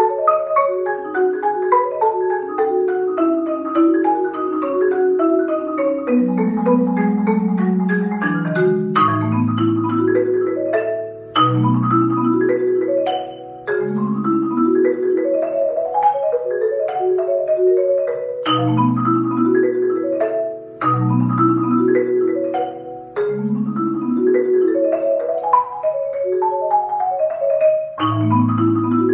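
Solo concert marimba played with four yarn mallets: fast, continuous arpeggio figures sweeping up and down the keyboard, with deep bass notes joining about a third of the way in and brief breaks between some phrases.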